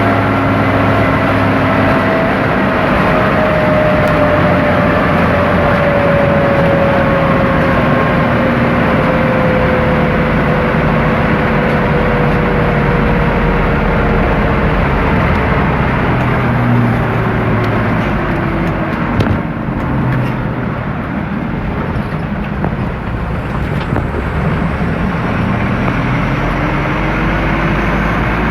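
Light diesel truck engine running hard at road speed, with road and wind noise; a whine slowly falls in pitch over the first half and rises again near the end, and there is one sharp click a little past the middle.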